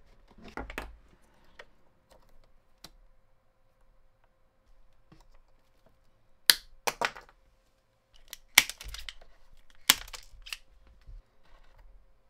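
Sharp clicks and snips from an insulated hand tool and fingers working the small wires at an electric lawn mower's motor, as its overload protection is cut out. A few faint ticks come first, then a cluster of louder clicks in the second half.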